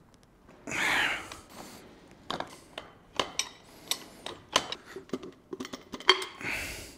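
Metal clinks and knocks of hand tools and the steel prop shaft as its centre bolt is undone and the two halves are worked apart, with brief ringing after some knocks. A short, loud rush of noise comes about a second in, and another near the end.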